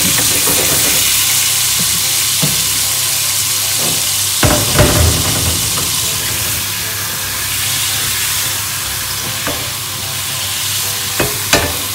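Vin Santo sweet wine sizzling and bubbling steadily as it reduces in a frying pan of hot olive oil and butter. A few knocks sound around the middle and again near the end.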